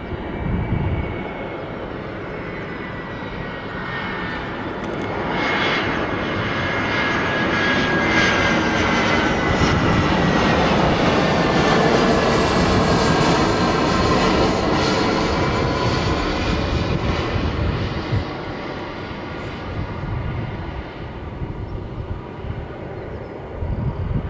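Airbus A320's CFM56 turbofan engines on landing approach, passing low by: the engine whine and rumble swell to a peak about halfway through, the whine falls in pitch as the aircraft goes past, and the sound fades as it moves away.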